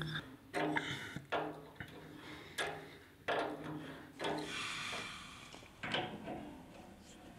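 Metal tools and fittings being handled while a radiator valve is fitted to a copper pipe: a handful of sharp clicks and knocks from pump pliers and the brass compression nut, with a rubbing scrape a little past halfway.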